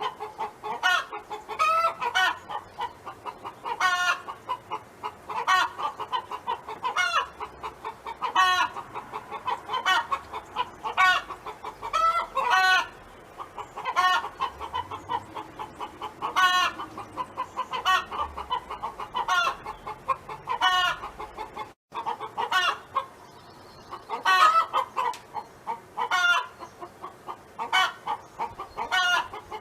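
A domestic hen clucking over and over in short pitched calls, about one or two a second, with steady murmuring clucks underneath.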